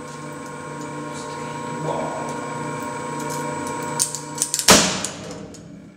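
Tensile testing machine running steadily with a hum as it pulls new MOTM tubular nylon webbing held in weblocks. About four seconds in come a few sharp cracks, then a loud bang as the webbing breaks at about 28 kN.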